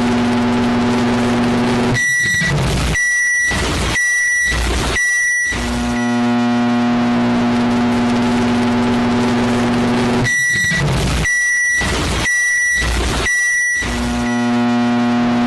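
Microwave oven running with a steady electrical hum, which stops for four high beeps about a second apart. The hum comes back, then stops again for four more beeps near the end.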